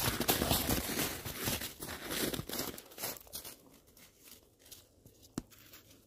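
Footsteps crunching in snow, a dense run of crunches for about three seconds that then thins to a few faint ones, with a sharp click about five seconds in.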